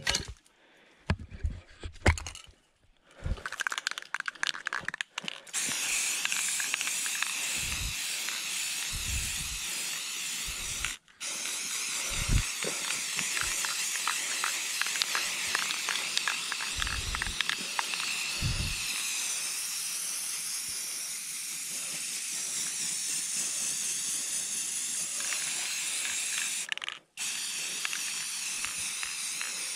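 Aerosol spray-paint can hissing in long continuous sprays onto tree bark, cut off briefly twice. A few scattered knocks and rustles come before the spraying starts, about five seconds in.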